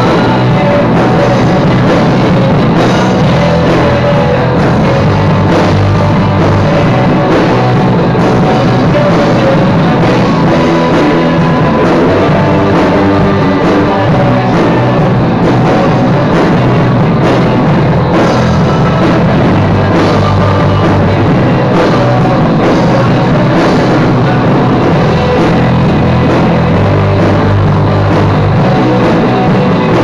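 Heavy rock music with drum kit and electric guitar, loud and unbroken; the guitar part is played on a Cort M200 electric guitar.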